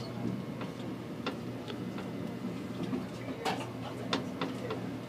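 Inside a slowly moving passenger train: light, irregular clicks and ticks over a steady low hum.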